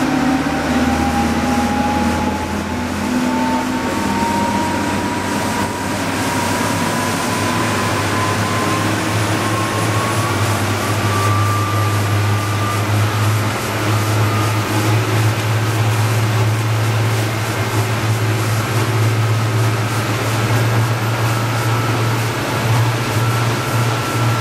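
Twin Caterpillar 3116 turbocharged six-cylinder diesels running hard under heavy throttle as the sport-fish boat comes up on plane, with a whine that climbs in pitch over the first dozen seconds and then holds. The rush of water and wake runs underneath.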